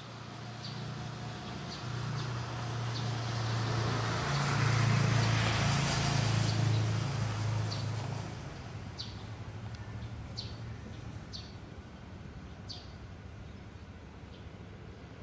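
A motor vehicle passes, its engine hum and rush swelling to a peak about five seconds in and fading away by about eleven seconds. Small birds give brief high chirps every second or so.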